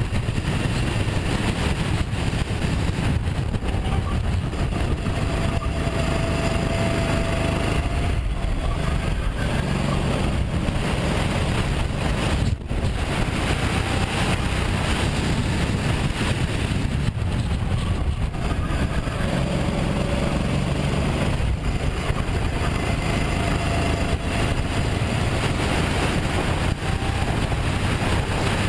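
Sodi RT8 rental kart's single-cylinder four-stroke engine heard from onboard, running hard at racing speed, with a few brief dips in level as the throttle comes off for corners.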